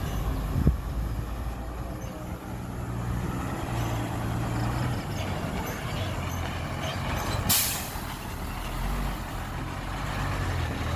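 Heavy diesel engine of earthmoving machinery or a dump truck running steadily, with a knock just under a second in and a short sharp hiss about seven and a half seconds in.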